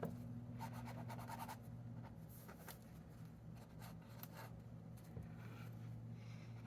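Paint pen scratching and dabbing on paper in short, quick strokes, faint, over a steady low hum.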